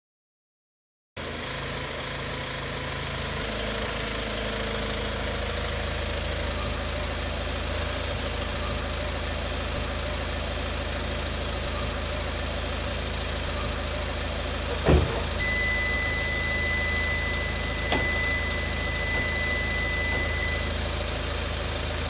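Hyundai Tucson engine idling steadily, held running by an aftermarket remote-start system; it starts about a second in. About fifteen seconds in there is a loud thump, followed by a steady high beep lasting about five seconds, with a sharp click partway through it.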